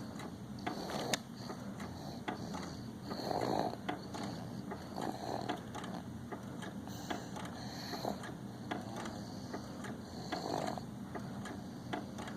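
A 7½-month-old baby snoring in sleep, a noisy breath swelling every two to three seconds, with faint irregular clicks alongside.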